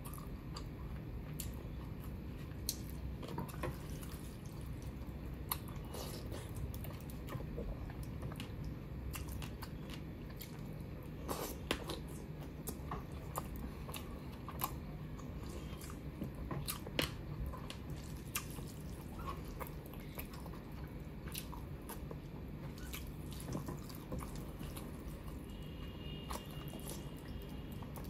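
Close-miked eating by hand: fingers mixing rice with runny chicken curry, and chewing, heard as many scattered short wet clicks and smacks over a steady low hum.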